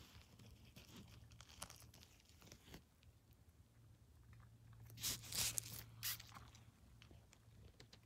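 Crackling and tearing of forest-floor litter and moss as a larch bolete is pulled out of the ground by hand. Scattered crackles early on, then the loudest tearing crunch about five to six seconds in.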